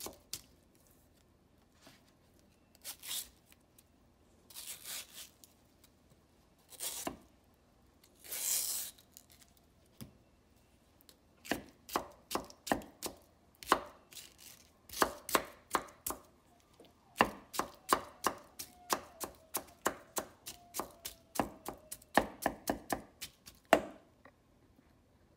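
Chef's knife chopping mango into small cubes on a wooden cutting board: sharp knocks of the blade on the board, spaced out with a few longer, hissier strokes in the first ten seconds, then coming quickly, two or three a second, until about a second before the end.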